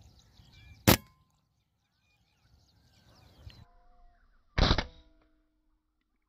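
Artemis M22 PCP air rifle firing: a sharp crack about a second in, then a louder, slightly longer report about four and a half seconds in with a brief ringing after it. Small birds chirp faintly in the background before the shots.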